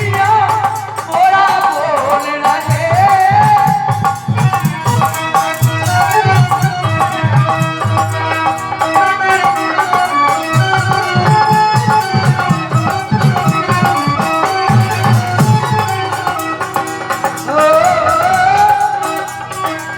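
Folk devotional (bhajan) music without words: a wavering melody line over a steady drum beat, with rattling percussion keeping time.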